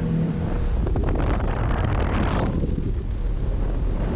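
Wind buffeting the microphone, a steady heavy rumble, with a rushing hiss over it that falls away about two and a half seconds in.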